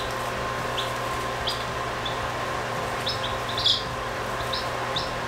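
Hatchling chicks (Orpington, Sussex and Wyandotte) peeping in a brooder: short, high-pitched peeps every second or so, with a cluster of several together about three and a half seconds in, over a steady background hum.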